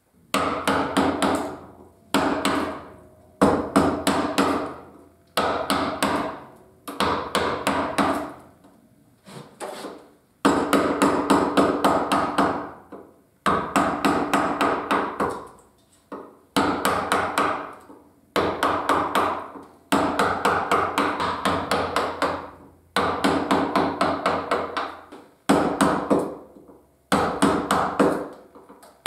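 A wooden mallet tapping a carving gouge into cherry wood in quick runs of sharp knocks, each run a second or two long with short pauses between.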